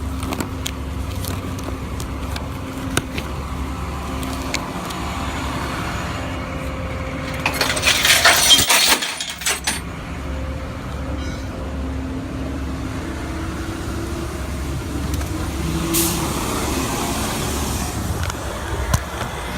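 A motor vehicle driving, heard from inside: a steady low engine and road rumble with a constant hum. About eight seconds in, a loud hissing rush lasts a couple of seconds before the rumble settles back.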